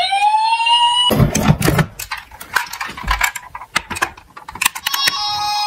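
Toy emergency vehicle's electronic siren: a rising wail that cuts off about a second in, then a scatter of clicks and knocks. Near the end a two-tone siren starts, alternating between two pitches.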